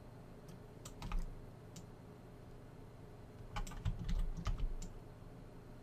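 Clicks and taps of a computer keyboard and mouse: a few single clicks about a second in, then a quick cluster of taps around four to five seconds in.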